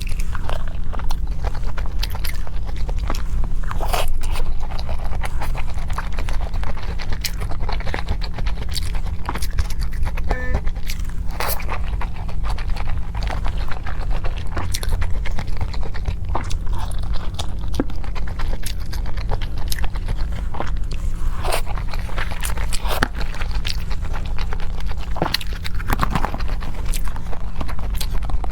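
A person chewing and biting food, with many irregular wet clicks and occasional crunches, over a steady low hum.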